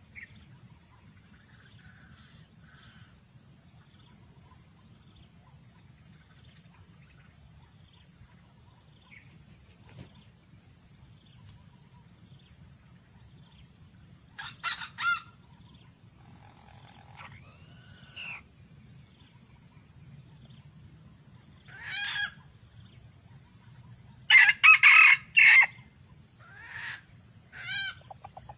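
Junglefowl roosters crowing: short clipped crows come a few at a time, loudest in a cluster about 25 seconds in, with some clucking between them.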